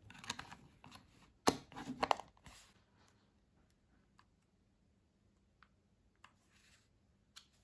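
Plastic battery cover of a TV remote being fitted and snapped shut: a few clicks and knocks, the loudest about a second and a half in. Then faint single clicks of the remote's buttons being pressed, about one every second or so.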